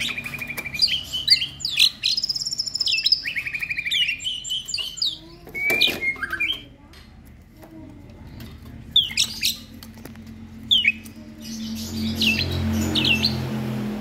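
Songbirds chirping and whistling. There are quick runs of whistled notes and trills in the first half, then a few short sharp chirps near the end, with a low hum coming in toward the close.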